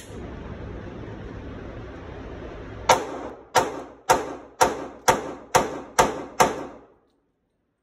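Eight pistol shots from a Glock 27 in .40 S&W, fired in rapid succession about two a second, each ringing briefly in the indoor range. They follow a single sharp knock at the very start over a steady background noise, and the sound cuts off abruptly just after the last shot.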